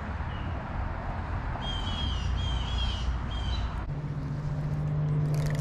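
A songbird calls several times in short chirping phrases over a steady background rush. About four seconds in, a steady low hum begins.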